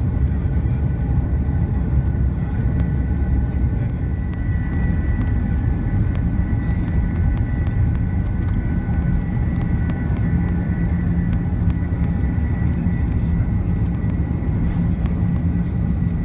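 Airbus A330-300's General Electric CF6-80E1 turbofan engines at takeoff thrust during the takeoff roll, heard from inside the cabin: a steady, loud engine noise with high whining fan tones over a deep rumble from the wheels on the runway, with a few light rattles. A lower steady hum joins about ten seconds in as the aircraft nears rotation.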